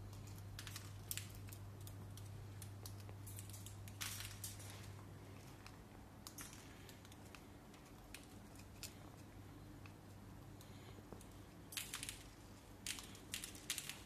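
Cockatiels cracking seeds and pecking inside a clear plastic seed feeder: scattered small sharp clicks and crunches, coming in a quick cluster near the end.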